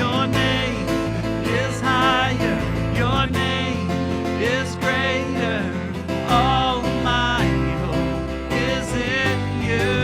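Music: plucked guitar accompaniment with a steady bass under a melody line that wavers with vibrato.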